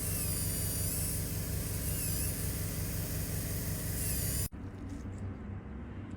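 Dental equipment running with a loud hiss and a high, wavering whistle over a low hum. It cuts off abruptly about four and a half seconds in, leaving a quieter background with a few faint clicks.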